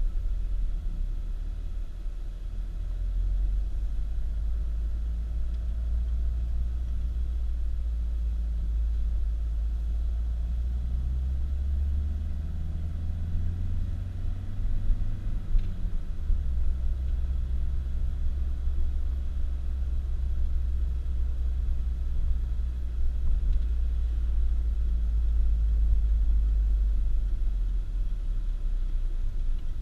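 Car driving: a steady low engine and road rumble, with the engine note rising for a few seconds around the middle and then dropping suddenly.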